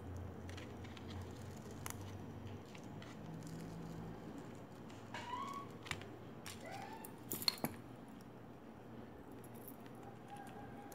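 Faint scattered clicks and taps of beads and thread being handled, with two short rising whines about five and six and a half seconds in.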